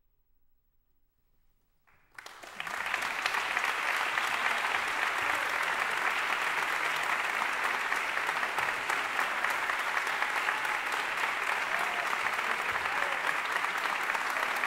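About two seconds of near silence, then an audience suddenly breaks into applause, which continues steadily.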